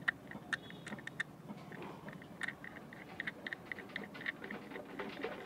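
Light, irregular clicks and taps of fingers turning and pressing the parts of a Beyblade spinning top together, several a second.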